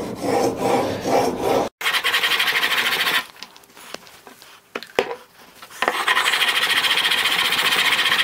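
Steel chisel blade in a honing guide being pushed back and forth on a wet 400-grit Japanese water stone: a rapid, gritty scraping that stops for a few seconds in the middle and then carries on steadily. The bevel is being ground on the coarse stone to reach a corner that is not yet done.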